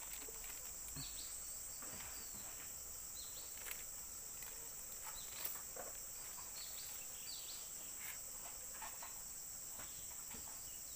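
Steady high-pitched drone of insects, with short high chirps of a bird every second or two. Faint clicks and crinkles of a plastic packet of fishing hooks being handled.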